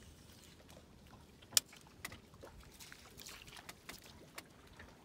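Faint water lapping and small knocks against a small fishing boat's hull, with one sharp knock about one and a half seconds in.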